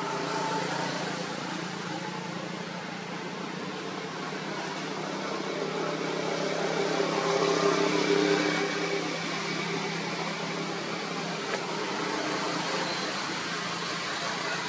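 A steady engine hum, swelling louder a little past the middle and then easing off, with one short click about two-thirds of the way through.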